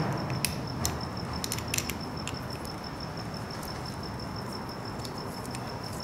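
A few light metallic clicks and clinks in the first couple of seconds as the clutch lever and its small hardware are handled and fitted to the handlebar perch, then mostly quiet handling over a faint steady high whine.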